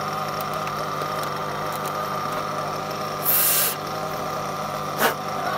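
Small nitro glow engine of a 1/8-scale RC GT car idling steadily. A short loud hiss comes about three seconds in, and a sharp click near the end.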